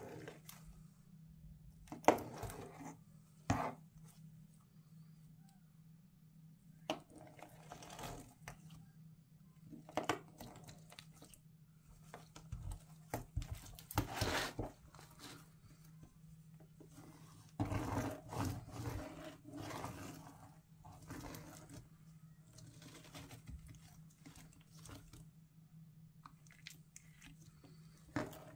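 Thick black glitter slime being cut with a pizza cutter. Irregular stretches of cutting sound come and go, some short and some a second or two long, with the sharpest one about two seconds in, over a faint steady low hum.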